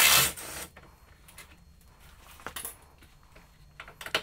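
A short, loud burst from an impact wrench, a 13 mm socket on a bolt, at the very start. Then a few faint metallic clicks as the bolt and socket are handled.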